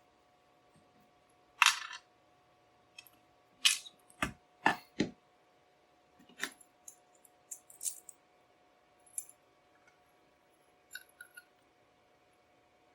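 Small metal parts of a Schlage Everest full-size interchangeable lock core clicking and knocking as the core is taken apart. The loudest knock comes about two seconds in, a quick cluster follows around four to five seconds, and lighter ticks run on until near the end.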